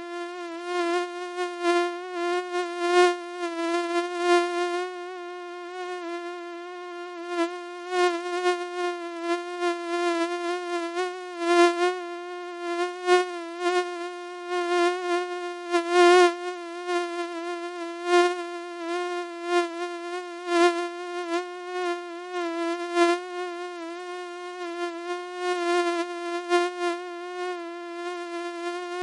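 A mosquito's whining buzz from its beating wings: one steady, slightly wavering pitch with many overtones, swelling and fading in loudness every second or two.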